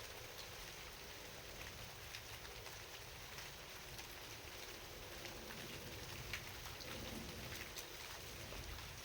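Steady night rain falling, with many individual drops ticking on a surface over an even hiss and a low steady rumble underneath.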